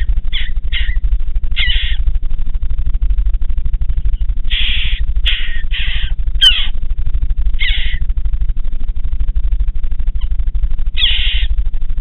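Western jackdaws calling in a nest box: about ten short calls in irregular clusters, over a loud, steady low hum in the recording.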